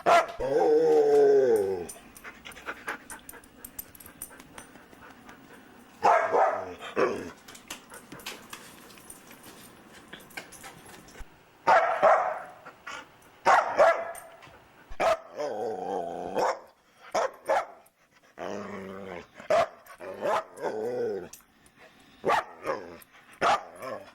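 A dog vocalizing in a string of drawn-out, pitched barks and talking-like calls. A long one comes at the start, and more follow in clusters through the second half, with quieter gaps between.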